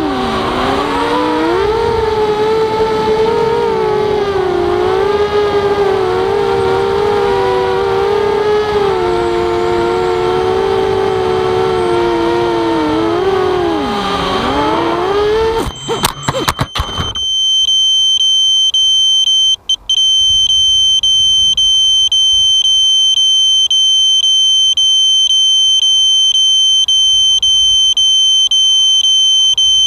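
Walkera Rodeo racing quadcopter's motors and propellers whining, the pitch rising and falling with the throttle, then a few sharp knocks as it crashes and the motors stop. A loud, steady, high-pitched alarm tone from the quad's onboard buzzer follows and keeps sounding.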